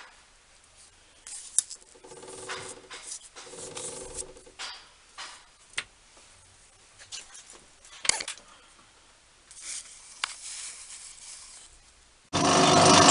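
Scattered faint clicks and knocks of workpiece and tools being handled. About twelve seconds in, a metal lathe starts and runs loud and steady, most likely cutting the brass part.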